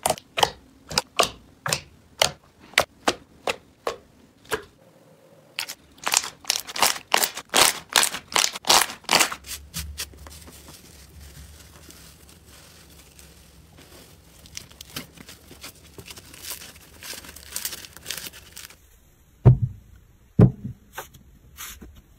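Hands poking and squeezing thick slime: a run of sharp wet pops and clicks, about three a second, then a faster run. After that comes quieter crackling with scattered small pops as a bubbly slime is stretched, and a few dull thuds near the end.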